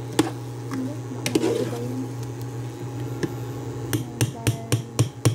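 Metal spoon stirring in a pot of meat and hotdog sauce, clinking against the pot a few times, then a quick run of clinks about four a second near the end. A steady hum from the running induction cooktop lies underneath.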